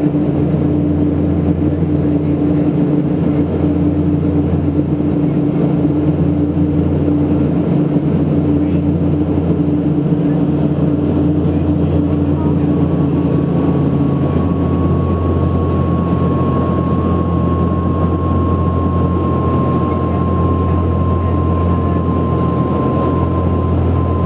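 Cabin noise of an Embraer EMB 120 Brasilia twin turboprop on approach, heard from a seat beside the wing: a loud, steady propeller and engine drone. About halfway through a higher whine comes in and slowly drops in pitch, while a lower steady hum fades out.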